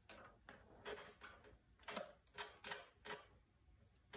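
Faint, irregular clicks and light taps as an amplifier power wire is worked by hand under a 2006 Harley-Davidson Ultra Classic's fuel tank and along the frame.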